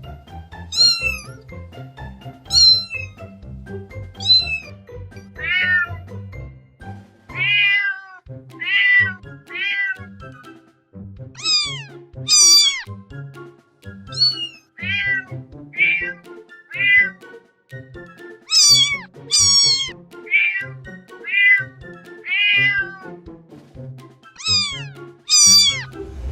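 Domestic cat meowing over and over, about twenty separate meows, most of them falling in pitch, some coming in quick pairs. Background music with a steady low beat plays underneath.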